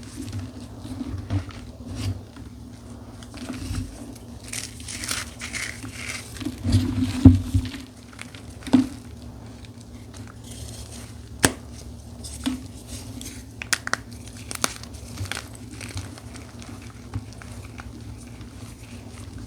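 Blocks of dyed gym chalk being crushed by hand: irregular crunching and crumbling, loudest in a cluster of crunches about seven seconds in, with a few sharp snaps later.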